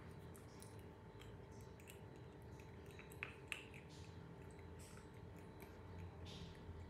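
Near silence: room tone with a steady low hum and a few faint, small clicks, the two clearest about three seconds in.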